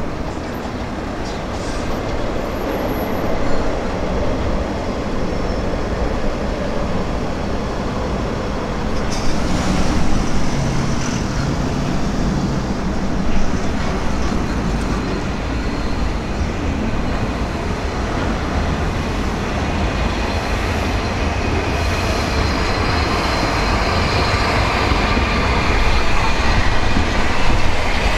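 Bulleid Merchant Navy class steam locomotive 35028 Clan Line moving slowly along the track as a light engine, a steady mix of running gear and steam, growing louder over the second half as it draws near.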